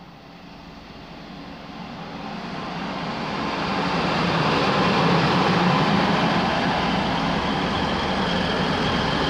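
TransPennine Express Class 185 diesel multiple unit running in alongside the platform: engine and wheel-on-rail noise that grows steadily louder over the first four or five seconds as it draws level, then holds steady as the coaches pass close by, with a thin high whine in the last couple of seconds.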